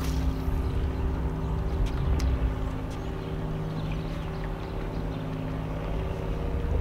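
Boat motor running at a steady speed: a constant, even-pitched hum with a low rumble underneath, and a couple of faint clicks about two seconds in.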